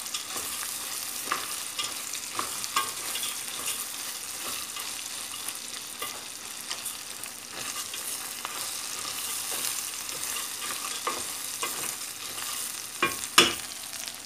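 Dry farfalle pasta, sliced sausages and peppers frying in oil in a stainless steel pot, sizzling steadily while being stirred with a wooden spoon, with scattered light scrapes and clicks. Two sharp knocks near the end.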